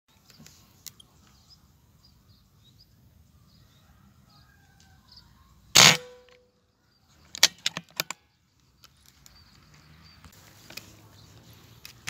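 A single shot from a PCP air rifle fitted with a silencer, about six seconds in, sudden and short with a brief ring. A quick run of about five sharp clicks follows about a second and a half later, with faint bird chirps before the shot.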